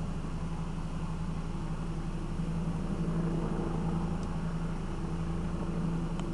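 Steady low engine drone, even in level throughout.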